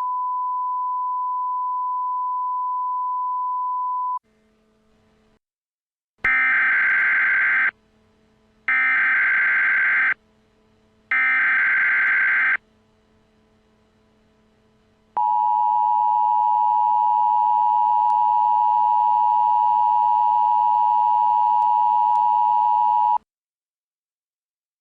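A steady single-pitch tone for about four seconds, then three short, warbling Emergency Alert System SAME header data bursts about a second apart, followed by the EAS two-tone attention signal, held for about eight seconds and cut off sharply.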